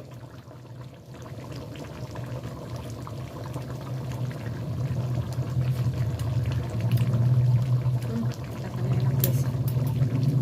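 Beef in sweet soy sauce simmering in a pan, the liquid bubbling steadily and growing gradually louder as the sauce reduces.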